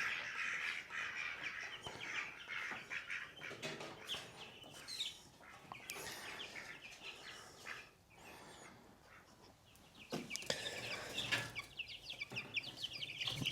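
A group of four-week-old chicks peeping and cheeping, many short high calls overlapping. They thin out to near quiet about eight seconds in, then start up again.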